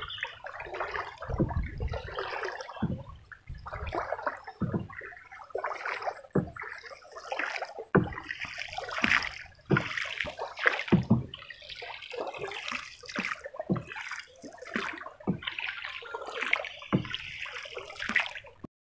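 Water splashing and sloshing around a small paddle boat on a river, in uneven surges with low thumps every second or two, then cutting off suddenly near the end.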